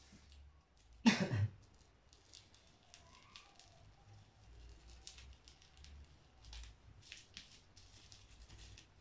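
Plastic bubble wrap on a cardboard box crinkling and clicking faintly as fingers pick at it, with one louder short rasp about a second in.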